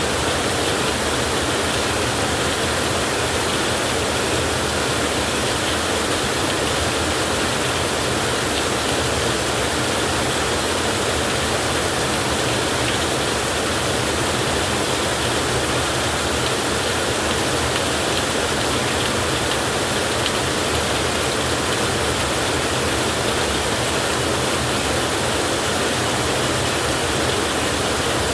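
Steady heavy rain: a constant, even hiss with no thunder claps and no change in level.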